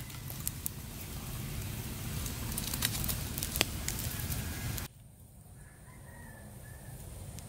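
Small wood-and-bamboo fire burning under a coconut shell, a steady low rush with sharp crackles and pops from the burning sticks. About five seconds in the sound drops abruptly to a much quieter background.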